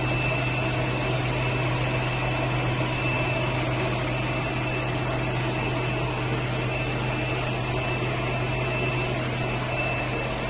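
A machine running steadily: an even mechanical noise with a low hum and a thin, steady high-pitched whine.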